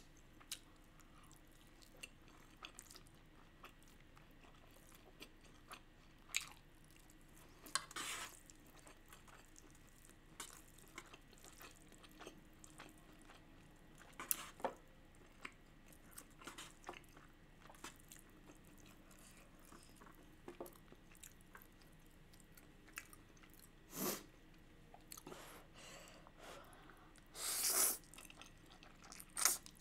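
A person chewing wagyu beef and spicy instant noodles, with soft mouth clicks and a few short louder sounds; near the end, a longer louder slurp as noodles are sucked up.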